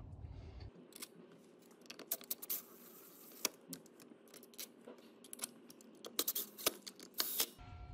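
Scattered light clicks, taps and scrapes of hands handling the plastic housing and wiring of a part-disassembled Makita DHS680 cordless circular saw, with a quick run of clicks near the end.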